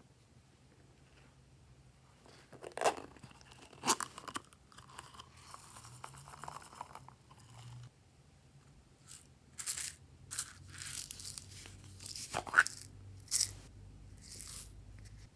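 Slime being kneaded and stretched by hand: several sharp sticky pops, with softer stretches of crackling in between.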